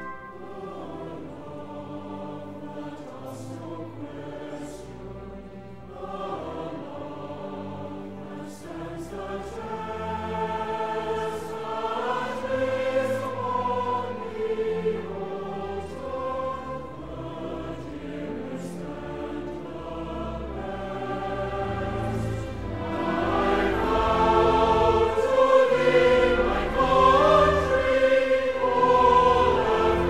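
Choral music with orchestra, sustained singing voices that build and grow louder over the last third.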